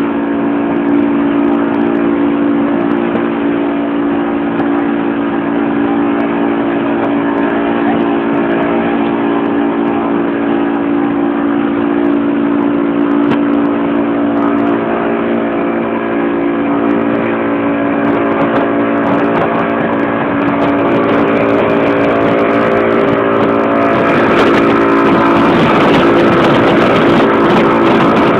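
Motorboat engine running steadily at speed, a constant droning tone, with the rushing of the wake and wind growing louder over the last few seconds.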